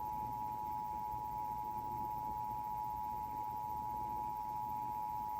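Emergency Alert System attention signal: a steady two-tone alert made of 853 Hz and 960 Hz sounded together, with no break. It announces that an emergency warning message is about to be read.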